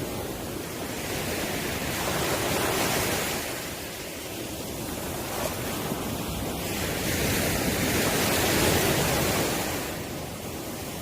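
Ocean waves breaking as surf, the wash swelling up and falling away twice.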